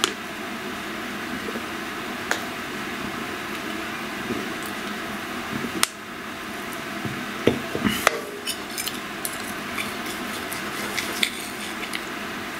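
Tableware and a drink can being handled at a table: a few sharp knocks, then a cluster of small clicks about eight seconds in, over a steady hiss.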